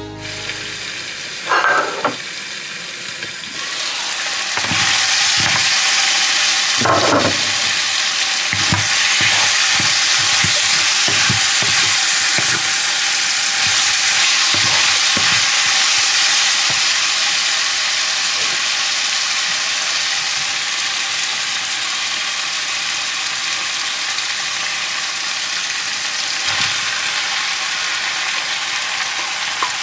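Pork pieces sizzling in a hot oiled wok, stirred with a wooden spatula that knocks and scrapes against the pan. The sizzle grows louder about four seconds in.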